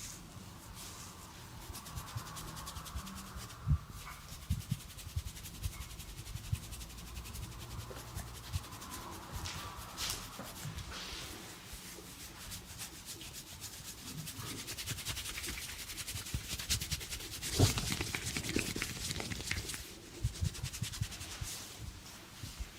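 Hands rubbing and kneading during a massage, close to the microphone, with scattered soft crackles and taps. There is a sharper knock about four seconds in and a louder one about three-quarters of the way through.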